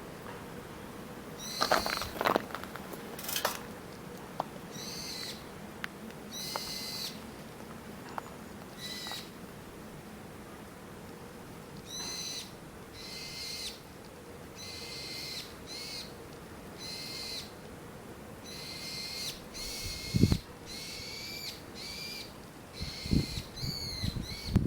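A series of short, high-pitched animal calls repeating irregularly, with a few sharp clicks early on and dull low thumps near the end.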